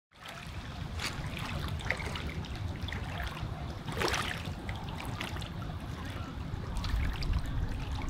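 Outdoor river ambience: water trickling and lapping at the shore over a steady low rumble, with a brief louder swish about four seconds in.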